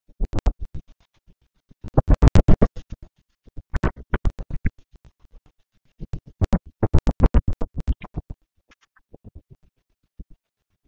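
Storm audio from sped-up security-camera footage, chopped into a rapid stutter of short bursts of wind and rain noise, about ten a second. It comes in two loud clusters, about two seconds in and again around seven seconds in, with quieter scattered bursts between.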